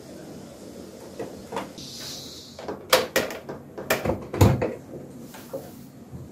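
Front-loading washing machine door being unlatched and pulled open: a run of sharp clicks and knocks from the latch and door over a couple of seconds, the loudest knock about four and a half seconds in.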